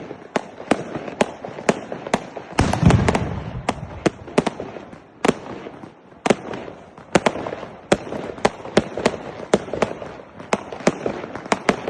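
A rapid, irregular barrage of firework bangs, several a second, with a heavier, deeper blast about three seconds in.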